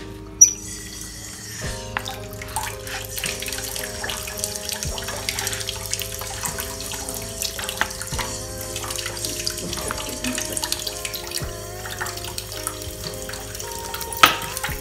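Cooked ragi dough being worked in a wooden bowl with a wooden spatula and then pressed by hand, a continuous wet crackling of many small ticks, over background music with held chords. A sharp knock about half a second in and another near the end.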